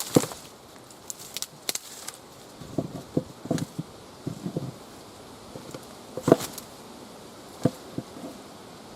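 Willow branches being handled and broken: scattered sharp snaps and knocks at irregular intervals, the loudest just after the start and about six seconds in, over a faint steady hiss.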